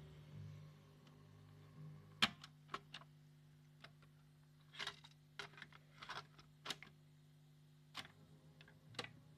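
Plastic push-buttons and transport keys of the red Grundig stereo's cassette deck being pressed, giving about a dozen sharp, irregular clicks and clunks from about two seconds in, over a faint steady low hum.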